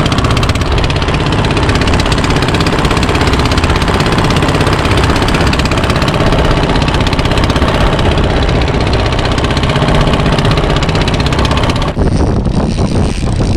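Fishing boat's diesel engine running steadily. About twelve seconds in, the engine sound falls back and wind on the microphone comes through.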